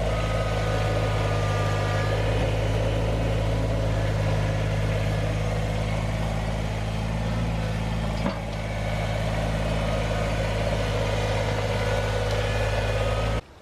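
Compact tractor's engine running steadily at an even speed while its front loader works, with a single knock about eight seconds in. The engine sound cuts off abruptly just before the end.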